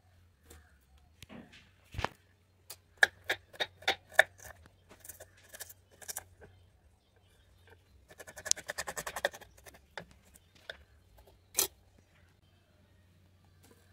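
Kitchen knife cutting on a wooden chopping board: a run of separate knocks about three or four a second, then a quick burst of rapid chopping, and one louder knock near the end.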